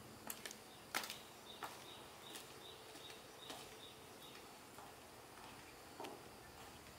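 Heeled sandals stepping on concrete: a few sharp, irregular clicks, the loudest about a second in. A faint, high, repeated chirping sounds in the background for a few seconds.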